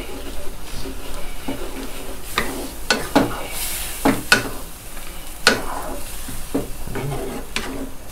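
Wooden spatula scraping and stirring shrimp and squid through a bubbling chili-paste sauce in a non-stick wok, with irregular strokes over a steady sizzle.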